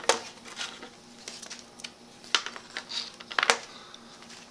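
Several sharp, scattered clicks and knocks as the two magnet-fitted halves of a dust shoe are pulled apart and set down on a steel tabletop. The loudest knock comes about three and a half seconds in.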